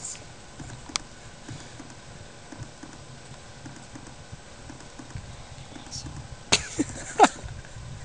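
Microwave oven running with a steady low hum while tinfoil inside arcs, giving faint scattered crackles and a few loud sharp snaps near the end.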